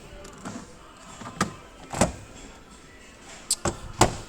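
A handful of short, sharp clicks and knocks, the loudest just before the end, over faint background music.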